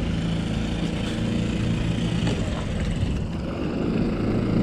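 Small tiller outboard motor running steadily at idle or low speed close by, a low, even drone.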